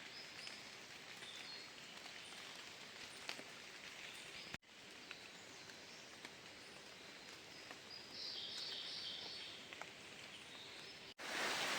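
Faint roadside outdoor ambience, with soft high bird calls now and then, most noticeably near the start and again near the end.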